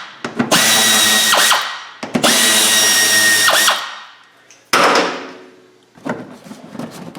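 Handheld power tool running in three bursts of about a second each with a steady whine, each tapering off as the trigger is released, as fasteners are spun out to get the wheel and fender liner off. A sharp clatter follows a little after the middle, then a few light knocks.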